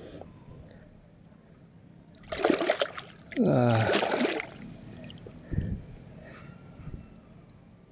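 Papuan spottail bass held in a lip grip thrashing in shallow water among rocks, splashing in two loud bursts a couple of seconds in, the second longer.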